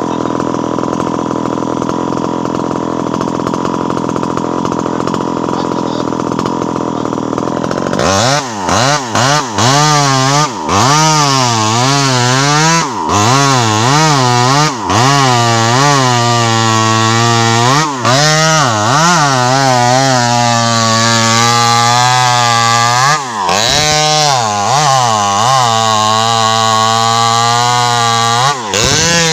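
Home-built 52cc two-stroke chainsaw running at a steady high pitch for several seconds, then its engine note rising and falling over and over, with a few short dips, as it works through the cut.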